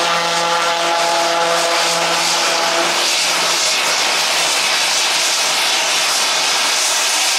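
Twin-engine turboprop airplane under power: a steady propeller and engine drone with clear pitched tones for about three seconds, then, as it starts its takeoff roll, the tones dissolve into an even, loud rush of propeller noise.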